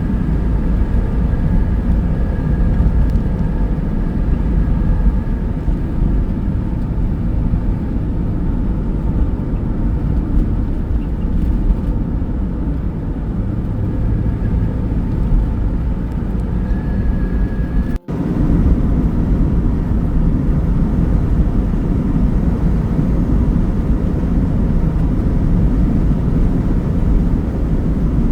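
Road and engine noise inside a moving Rialta RV's cabin: a steady low rumble that breaks off for an instant about eighteen seconds in.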